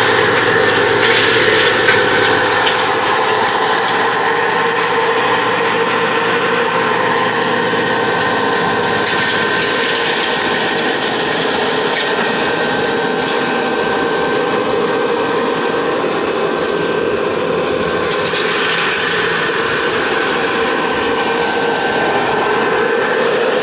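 Large disc crusher (disc pulverizer) running, a loud continuous grinding noise with a steady whine over it.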